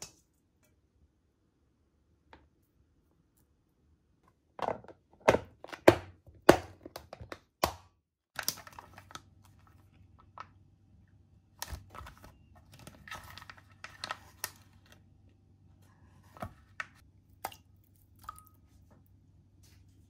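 Kitchen handling sounds. About five seconds in comes a run of sharp knocks and clicks. Then a plastic vacuum pack of mackerel crinkles and tears as it is handled and opened, with a few more knocks on a wooden cutting board, over a low steady hum.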